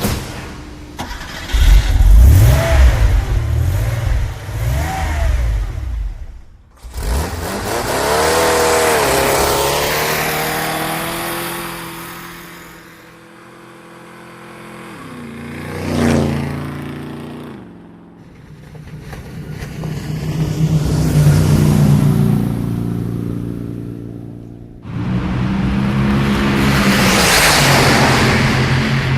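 A string of separate motor vehicle engine sounds, each running and changing pitch as it speeds up and slows down, with a short sharp swell in loudness near the middle.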